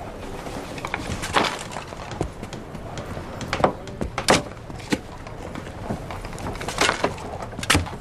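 Shovel scooping and scraping gravel into a wheelbarrow, several separate gritty scrapes a second or two apart, over a low background bustle.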